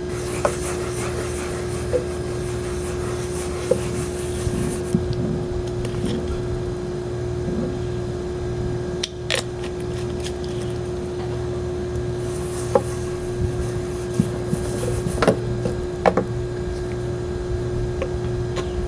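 Rubbing and scraping with small clicks and knocks as sharpening powder is worked evenly into the oiled surface of a clipper-blade sharpening stone, over a steady hum.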